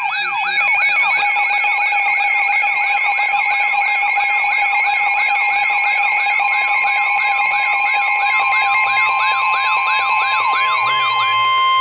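Weather radio emergency alert: an electronic siren-like tone sweeping up and down about three times a second over steady tones. Near the end the sweeping stops, leaving a steady tone that cuts off.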